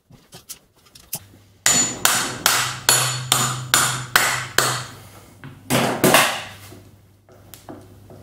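Hammer blows driving a half shaft (side output flange) into the side of a Nissan R200 differential. A run of eight sharp metal strikes comes at a steady two to three per second, then two more after a short pause.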